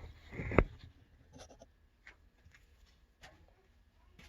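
Handling of a worm bin: a short scrape ending in a single loud knock about half a second in, followed by faint scattered clicks and rustles.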